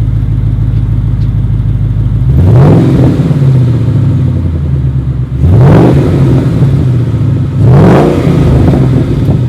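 2011 Mustang GT's 5.0 V8 idling through freshly installed Borla Pro XS mufflers, then revved three times, the exhaust note rising and falling with each blip of the throttle, about two and a half seconds apart.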